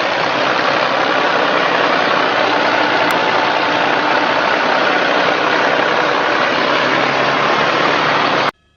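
Engine-driven farm machine running steadily and loudly, a dense even machine noise that cuts in suddenly and cuts off suddenly near the end.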